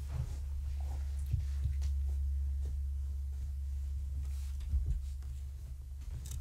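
Steady low electrical hum, with a few soft thumps and rustles from kittens playing on a blanket; the loudest thump comes near the end.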